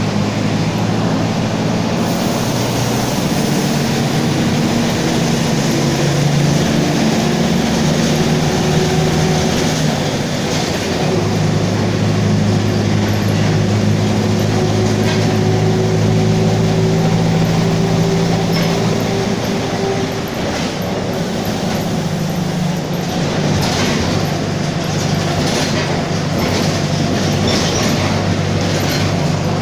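Mercedes-Benz OF-1722M city bus under way: engine and drivetrain running steadily with a growling whine from the differential over road noise. A series of clattering knocks comes in the last several seconds.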